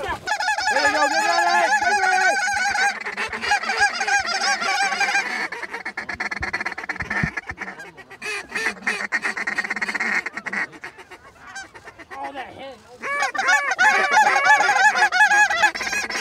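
Geese honking in rapid, overlapping calls, loud for the first few seconds, quieter in the middle, and loud again near the end.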